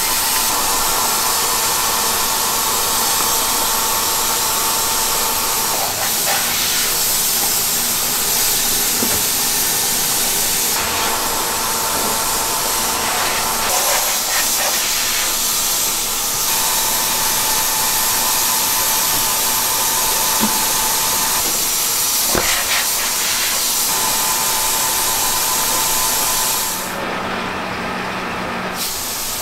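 Steady loud hissing of ceramics-factory machinery with a constant whine, broken by a few light clicks and knocks. The sound changes character several times, and the hiss drops away near the end.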